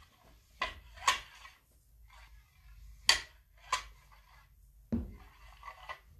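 About six sharp, irregular clicks and knocks of hard objects being handled, the loudest about 1 s and 3 s in, with a duller knock near 5 s.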